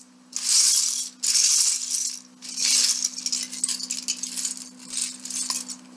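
Loose plastic Lego pieces rattling and clattering as hands rummage through a pile of them. There are three loud bursts of about a second each, then lighter, shorter shuffles.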